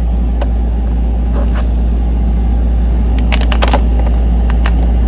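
Steady low rumble with scattered light clicks and ticks, a quick cluster of them about three and a half seconds in, from a hex key turning screws into a plastic tablet mount.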